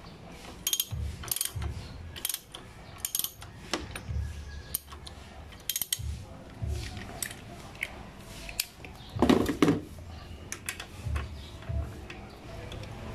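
Socket ratchet wrench clicking in irregular runs as it turns out the bolt holding a motorcycle's front brake caliper to the fork, with one louder clunk a little past halfway.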